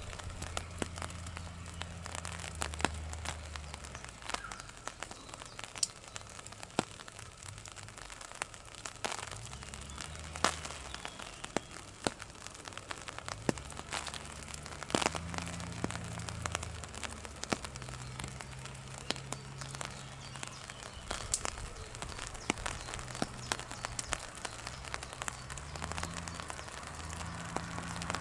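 Raindrops tapping irregularly on an umbrella over the microphone, with a low droning machine noise underneath that comes and goes and changes pitch in steps.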